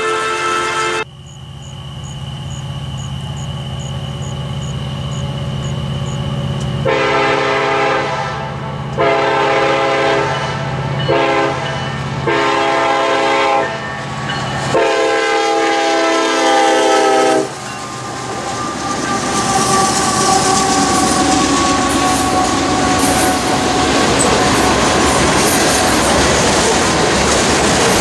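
Union Pacific grain train led by an EMD SD70ACe diesel locomotive: the engine's rumble grows louder as it approaches, then the horn sounds five blasts (two long, one short, two more long), the grade-crossing warning. From about two-thirds of the way through, the locomotives and covered hopper cars pass close by with a steady clatter of wheels on the rails and some wheel squeal.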